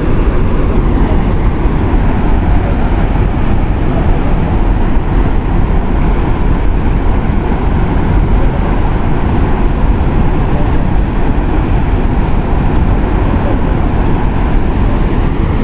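Loud, steady rush of a waterfall, water pouring and churning without a break.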